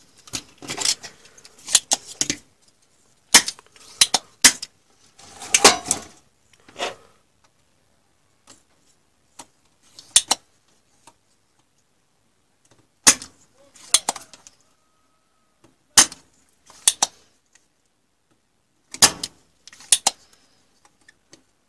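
Scattered clicks and light metallic clatter of a soldering iron and small tools being handled and set down on the workbench, coming in irregular clusters with pauses between.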